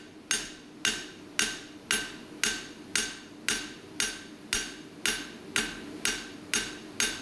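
Flat face of a cross-peen hammer striking red-hot flat steel bar on an anvil in even blows about two a second, each with a short bright ring. The bar's end is being spread and tapered into a fishtail.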